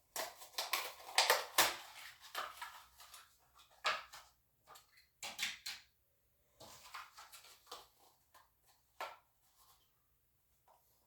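Plastic blister-card packaging of a die-cast toy car crinkling and crackling as it is handled, in irregular bursts, densest in the first two seconds and then sparser, with gaps.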